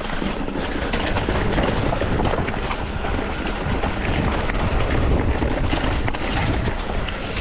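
Mountain bike riding down a rough rocky trail: tyres rolling over rocks and loose debris, with many small clicks and rattles from the bike, under steady wind rush on the microphone.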